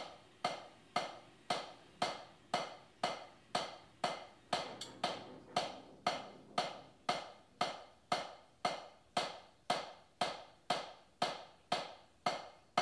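Drumstick rebound strokes: single, even hits about twice a second, each dying away quickly, one clean hit per stroke with no buzz or extra bounces.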